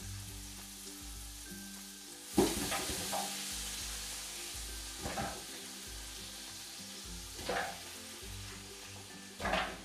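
Vegetables going into a hot pan of sautéed pancetta, garlic, onion and tomato: a sudden loud sizzle about two and a half seconds in, settling into steady frying, then flaring up briefly three more times.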